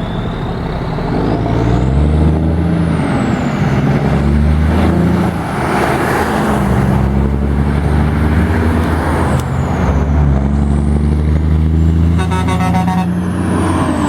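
Straight-piped Kenworth W900 diesel semi truck accelerating through several gears, its loud exhaust note rising and dropping with each shift. A loud turbo whistle sweeps up and down above the exhaust.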